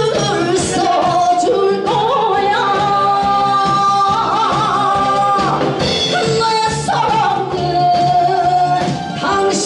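A woman singing a Korean trot song into a microphone over amplified accompaniment, holding long notes that slide and waver in pitch.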